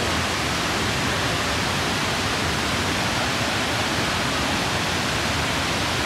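Steady rushing of a large waterfall and the whitewater in the gorge below it: an even, unbroken noise of falling water.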